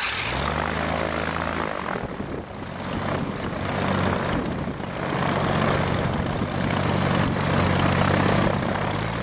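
Chevrolet auto engine on a propeller test stand, just started: it speeds up over the first two seconds, then runs steadily with the rush of the turning propeller.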